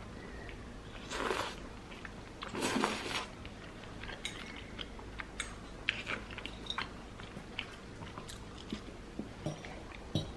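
Close-miked eating: two crunchy bites, about a second in and just before three seconds, followed by chewing with scattered small mouth clicks.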